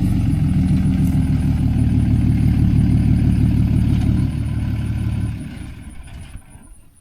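A vehicle engine running steadily close by, then dropping away about five seconds in and fading out.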